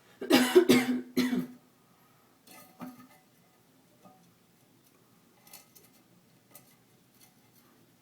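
A person coughing a few times in quick succession about a second in, followed by faint scattered clicks and light knocks.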